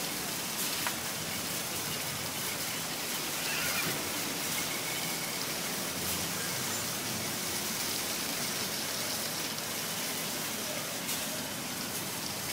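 Steady, even hiss of outdoor parking-lot ambience, with faint distant voices.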